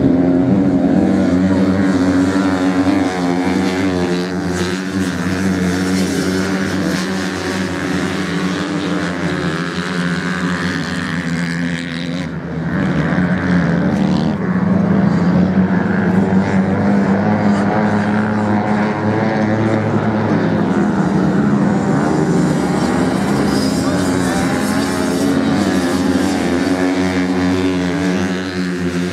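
Several motocross dirt bikes racing on sand, their engines revving up and down without a break, dipping briefly about twelve seconds in.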